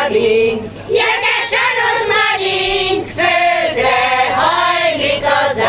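Village women's choir singing a Hungarian folk song, in sung phrases with short breaks between them.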